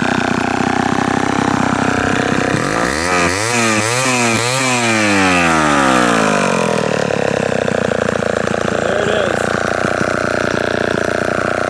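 Homelite Super Wiz 55 two-stroke chainsaw idling. About three seconds in it is revved up, blipped a few times, and drops back to idle by about six seconds in.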